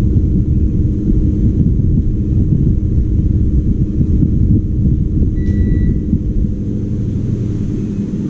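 Loud low rumble with a steady hum under it, and one short high electronic beep a little past halfway.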